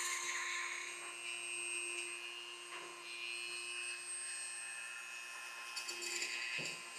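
Dremel rotary tool spinning a length of 2.85 mm 3D printer filament in its chuck, a steady whine, as the filament is pressed against a 3D-printed plastic part to friction-weld a tack.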